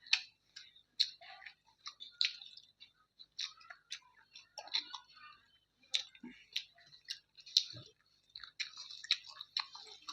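Close-miked eating sounds: chewing with irregular wet mouth clicks and smacks, a few a second.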